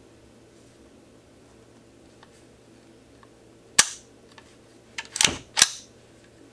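The action of a Squires Bingham (Savage) .22 semi-automatic rifle worked by hand as a function check after reassembly: a sharp metallic click near four seconds in, then a longer clack and a snap a little over a second later as the bolt is pulled back and let fly forward.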